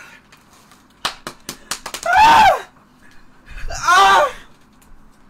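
A young man screaming without words, two loud high cries about half a second each with the pitch arching and falling, from the burning pain of the One Chip Challenge's extremely hot chili chip. Just before the first cry there is a quick run of sharp knocks.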